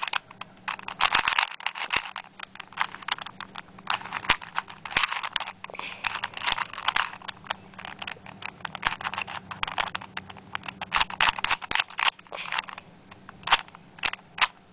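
ShengShou 2x2 plastic puzzle cube being twisted quickly in the hands: a continuous run of rapid plastic clicks and scrapes as its layers turn. It turns smoothly.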